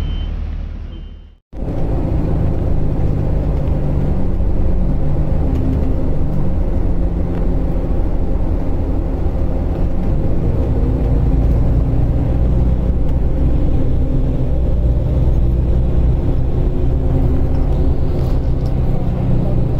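Airport apron shuttle bus driving, heard from inside the crowded passenger cabin: a steady low engine rumble whose tone rises and falls a little. A few short high beeps sound in the first second.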